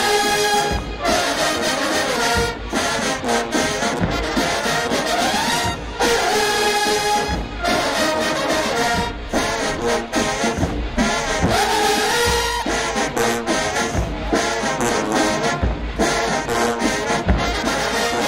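Marching band playing, with trombones and trumpets carrying the tune over recurring bass drum hits.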